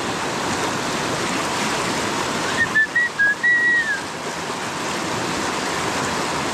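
Fast-flowing river water rushing steadily. About two and a half seconds in, a brief broken run of high whistle-like notes sounds over it for about a second and a half.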